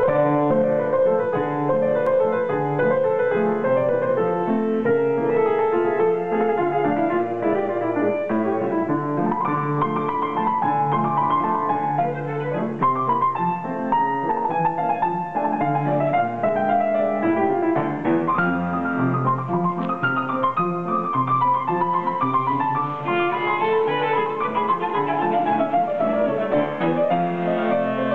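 Kawai grand piano and cello playing together, the music starting abruptly.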